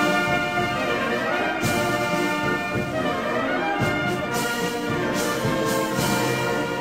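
Brass band playing, with held chords and a few short hits.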